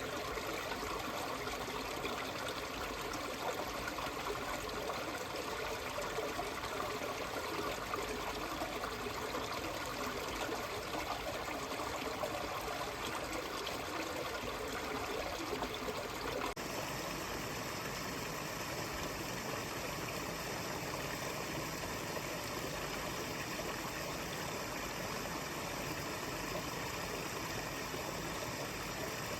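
A fast mountain stream running over rocks, a steady rushing and trickling. About 17 seconds in the sound changes suddenly to a smoother, steadier rush with more low rumble.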